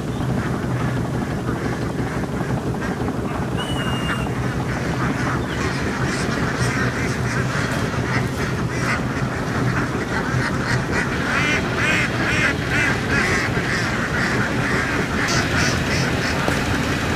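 A large flock of domestic laying ducks quacking, many birds at once, the calling growing denser about halfway through. Under it runs a steady low engine hum.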